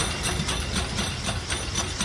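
RPSI No. 4, a 2-6-4 tank steam locomotive, moving slowly away with a steady rhythm of about four sharp beats a second, slowly fading.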